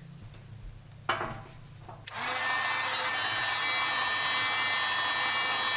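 A short knock about a second in, then an electric heat gun switches on and runs with a steady blowing whine, heating the aluminium hub so the new bearing will drop in.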